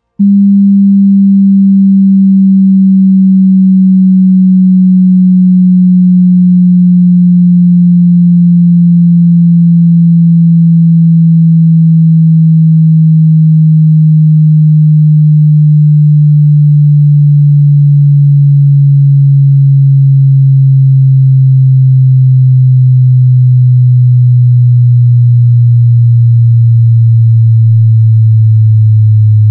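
Pure sine test tone sweeping slowly downward from about 200 Hz, the start of a headphone bass-extension test that descends toward 10 Hz. The tone is loud and steady, dips briefly about every five seconds, and ends lower in pitch.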